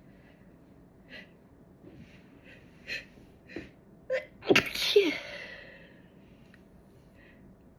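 A woman sneezing once, loudly, about four and a half seconds in, after a few short catching breaths. The sneeze ends in a falling vocal tail.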